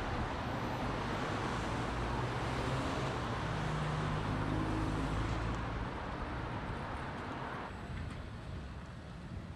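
Road traffic: a motor vehicle passing, loudest around the middle and fading away over the last few seconds.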